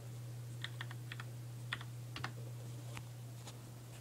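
Typing on a mechanical keyboard: a dozen or so light, irregularly spaced key clicks, over a steady low hum.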